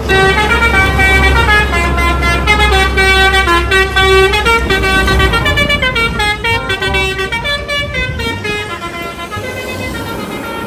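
Bus telolet horn, a multi-tone musical horn, playing a quick stepping tune of horn notes over a bus engine's low rumble. The rumble drops about halfway through while the horn notes carry on, slowly getting quieter.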